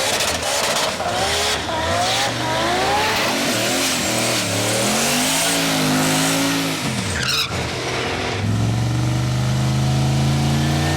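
Turbocharged V8 drag car doing a burnout: the engine revs up and down while the tyres spin and squeal, then it lets off about seven seconds in and settles into a steady engine note.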